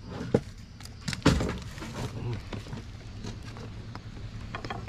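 A knock and then a louder thump about a second in, as things are handled on a small fishing boat, over a low steady hum.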